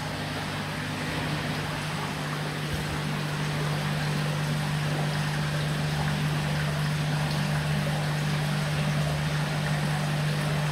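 Water running and trickling steadily into a koi tank over a steady low machine hum from the tank's pumping equipment, getting a little louder about a third of the way in.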